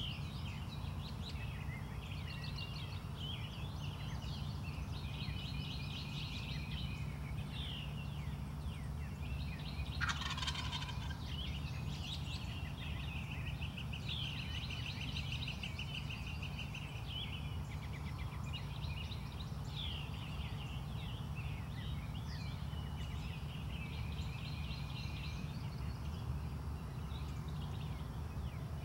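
Wild turkey gobbler gobbling once, a loud falling rattle about ten seconds in, over songbirds chirping and trilling throughout and a steady low hum.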